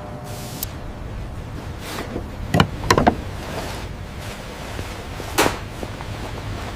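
A few sharp knocks and clacks, a couple of seconds apart, over a steady low hum.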